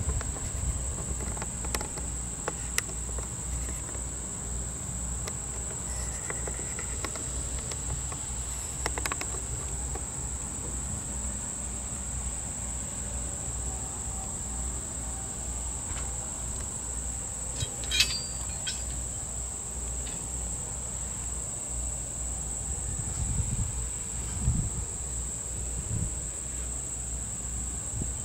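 Insects shrilling in a steady high-pitched chorus over a low outdoor rumble, with a short burst of clicks about eighteen seconds in.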